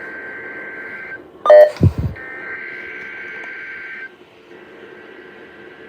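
NOAA Weather Radio SAME header bursts for a Required Weekly Test, heard over a radio receiver: two warbling two-tone digital data bursts of about two seconds each. A loud, short burst sweeping down in pitch sits between them about one and a half seconds in, and radio hiss follows the second burst.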